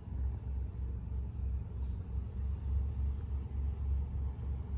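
A low, unevenly pulsing rumble, with faint insects chirping steadily high above it.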